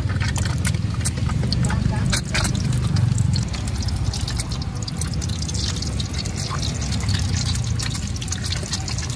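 Duck egg frying in hot oil in a wok, the oil sizzling with scattered crackles and pops as a ladle spoons oil over the egg, over a steady low rumble.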